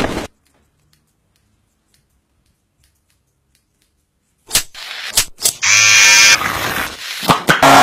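A short swish as a barber's cloth cape is flicked out, then near silence for about four seconds. Near the end come a few sharp clicks, and then an electric hair clipper buzzes loudly as it trims the neckline.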